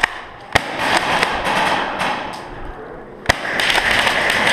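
Airsoft gunfire: sharp cracks of shots or BBs striking cover, one right at the start, another about half a second later, and a third about three seconds in, over a steady background din.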